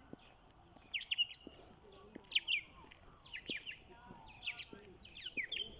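Small songbirds chirping: quick clusters of short, sharp, high-pitched notes that sweep steeply in pitch, repeating about once a second.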